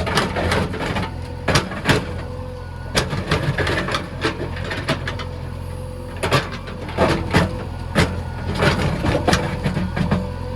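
Backhoe loader's diesel engine running steadily, with irregular sharp knocks and clanks over it.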